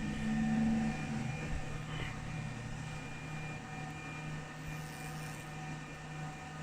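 Laser back-glass removal machine running with a steady electrical hum and a few thin, constant tones.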